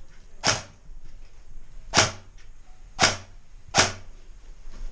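Airsoft gun fired in single shots: four sharp cracks at uneven intervals.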